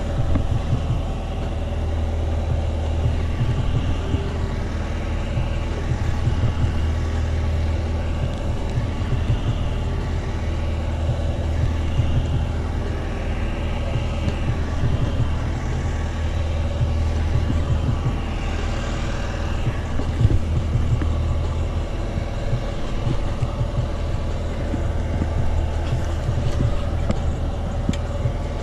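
Fishing boat's engine running steadily, a continuous low hum.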